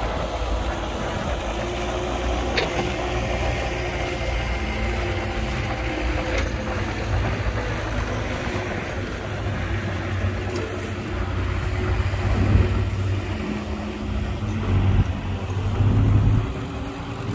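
Diesel engine of heavy earthmoving machinery running steadily. There are a couple of short sharp knocks a few seconds in, and the low rumble swells louder several times in the last few seconds.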